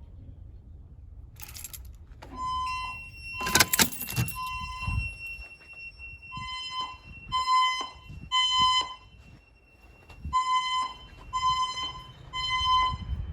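Silent Knight voice-evacuation fire alarm speakers sounding their pulsed alert tone: a high beep of about half a second, repeated in groups of roughly three, before the evacuation message. A short loud burst of noise comes about three and a half seconds in.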